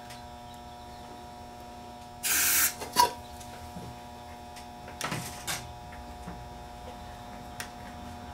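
Aerosol can of DeoxIT contact cleaner giving a half-second spray through its extension straw into the control potentiometers about two seconds in, followed by a sharp click, then a couple of shorter hisses about five seconds in, over a faint steady hum.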